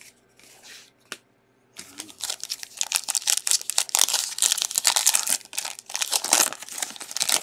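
Foil trading-card pack wrapper (2021 Bowman) crinkling loudly and continuously as it is handled, starting about two seconds in after a few faint taps of cards.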